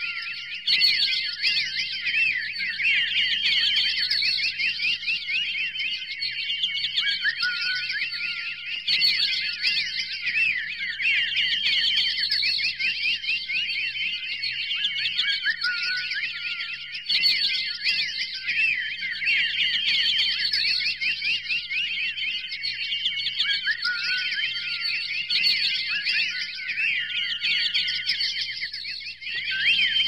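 Dense chorus of many songbirds chirping and whistling together, a continuous mass of quick rising and falling notes. The same passage appears to loop about every eight seconds.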